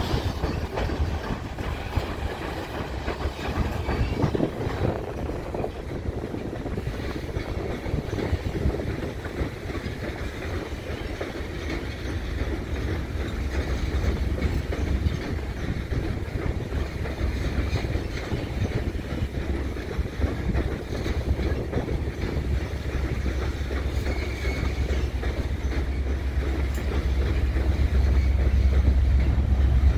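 Freight train of oil tank cars rolling slowly past, the wheels clicking over rail joints. Near the end a low rumble grows louder as the diesel locomotives shoving the train draw closer.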